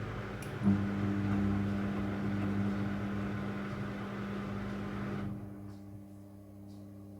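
Front-loading washing machine running with a steady electric hum. The hum comes on louder with a click a little under a second in, and a hiss over it dies away about five seconds in.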